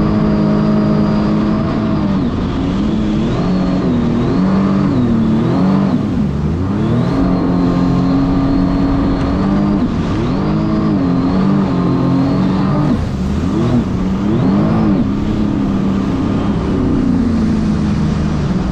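Sea-Doo RXT-X 300 personal watercraft's supercharged three-cylinder engine running hard. Its pitch swings up and down again and again as the revs rise and fall.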